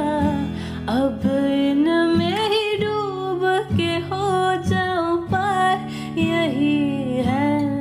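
Background music: a song with a sung melody over steady instrumental accompaniment.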